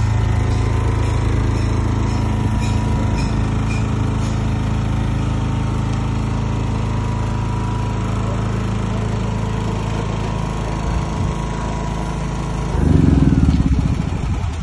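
10 kVA three-phase petrol generator set running steadily inside its sound-proof enclosure, just after its electric self-start with the choke pulled. Near the end a louder, rougher burst lasts about a second and a half.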